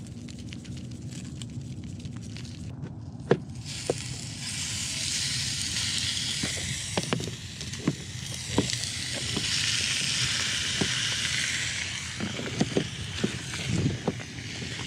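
Chunks of chicken sizzling in a hot pan. The sizzle starts suddenly about three and a half seconds in and swells and eases, with scattered sharp taps and clinks of a utensil against the pan.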